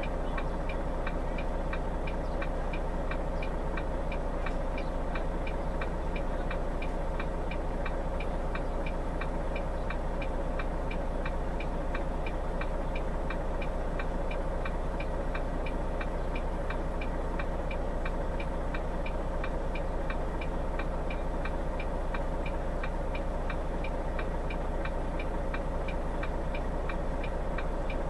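A car's indicator relay ticking in a steady, even rhythm over the engine idling while the car stands still.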